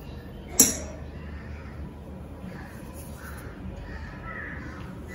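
A single sharp metallic clink about half a second in: a steel spoon set down against a small steel bowl, ringing briefly.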